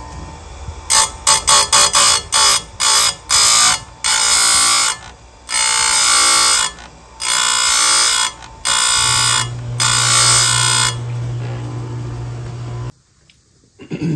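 Electric chain grinder's abrasive wheel grinding the steel cutter teeth of a chainsaw chain, with a loud, high screech at each contact. It opens with several quick touches about a second in, then moves to longer passes of about a second each, with a low motor hum under the last ones. The sound stops abruptly near the end.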